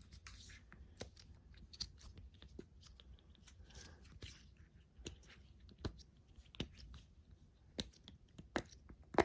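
Scattered soft clicks and taps at irregular intervals from silicone pop-it fidget toys being handled and popped.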